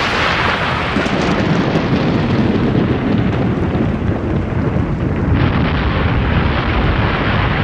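A loud, steady rumbling noise with no clear pitch, of the thunder or explosion kind; it turns hissier about five seconds in.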